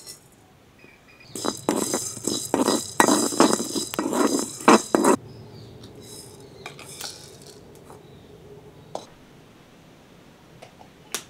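Whole spices (black peppercorns, cinnamon, cardamom and cloves) rattling and scraping in a shallow metal pan, starting about a second in and lasting about four seconds. Afterwards a few faint clinks, and one sharp click near the end.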